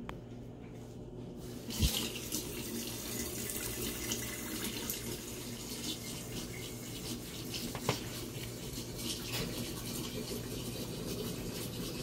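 Kitchen faucet running and water draining through the sink's drain pipes, heard from under the sink, starting with a knock about two seconds in and then flowing steadily; the water is running to test the just-tightened drain connections for leaks.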